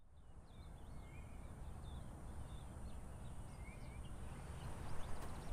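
Outdoor ambience of small birds calling, short chirps and twice a slurred whistle, over a steady low rumble of wind or distant traffic, with a few light clicks near the end.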